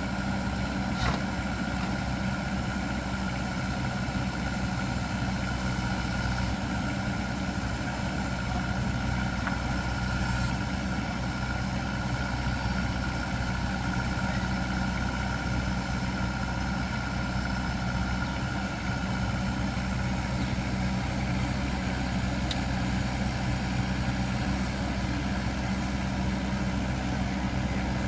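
Excavator engine running steadily at a constant speed, with a steady high whine over its low drone. A single sharp click about a second in.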